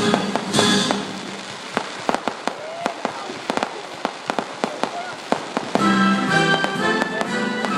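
Fireworks crackling: dozens of sharp, rapid pops. Music plays under them, drops away about a second in and comes back near the end.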